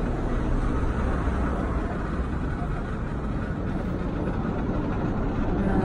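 Steady low rumble of traffic noise, even and without any distinct tone or event.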